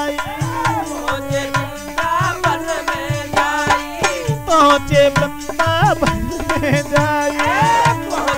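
Instrumental interlude of a Hindi devotional bhajan: a hand drum plays a quick, even rhythm under a steady held note and a sliding, bending melody line.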